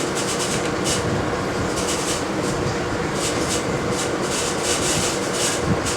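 Repeated short scrapes and rubbing as engine parts and bolts are handled, over a steady background noise.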